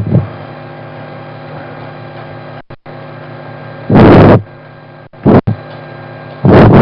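Steady electrical mains hum with a buzz of evenly spaced overtones on the microphone line, broken by a few short loud noises at the start, about four seconds in, and near the end.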